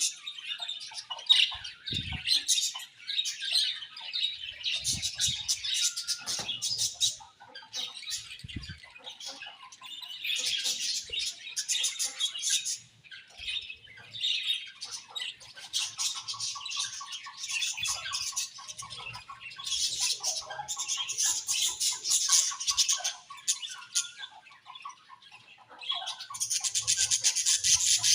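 A flock of budgerigars chattering and chirping continuously, many birds at once, rising and falling in waves, with the odd short squawk and a few soft thumps.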